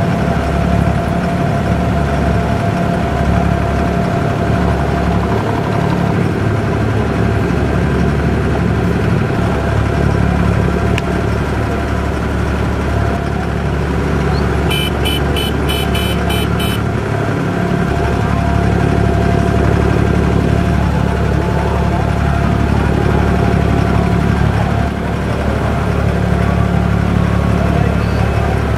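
Abra water taxi's diesel engine running steadily under way, loud and close. About halfway through, a short run of rapid high electronic beeps lasts about two seconds.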